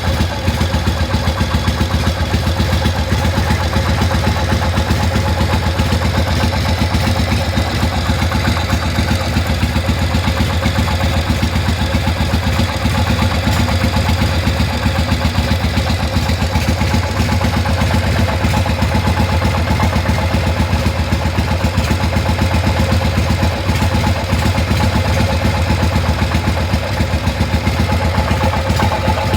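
Harley-Davidson Shovelhead V-twin engine running steadily with a fast, even pulsing and an abnormal noise. The owner traces the noise to the front pulley side and is unsure whether it comes from the crankshaft or the primary drive.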